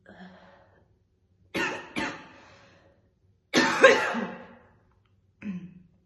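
A woman's heavy smoker's cough, coming in a series of separate coughs: a faint one at the start, two sharp coughs about a second and a half in, a longer, loudest double cough near the middle, and a short one near the end.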